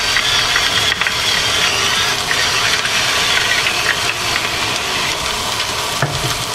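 Sliced cabbage and onions sizzling steadily in butter in a frying pan on medium-high heat.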